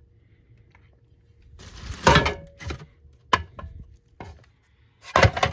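Spare car parts and boxes being handled and set down: clattering and knocks of hard pieces, with a loud burst of rummaging about two seconds in, a few sharp single clicks after it, and another burst near the end.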